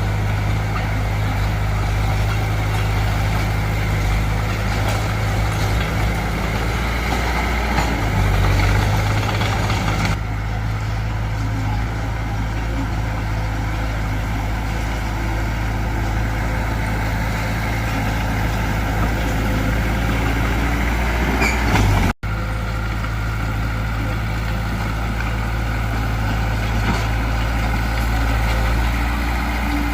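Heavy diesel engine of earthmoving machinery running steadily with a deep drone. Its tone shifts about ten seconds in, and the sound drops out for an instant about two-thirds through.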